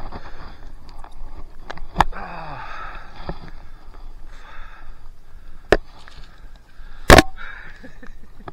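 Paddle strokes on a stand-up paddleboard: swishes of water broken by a few sharp knocks, the loudest about seven seconds in.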